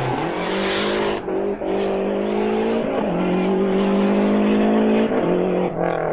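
A 1990s Group A rally car's engine running hard at speed on a tarmac stage. The engine note holds fairly steady and breaks sharply a few times, about a second in, near two seconds, at three seconds and at five seconds, with a hissing rush over the first second.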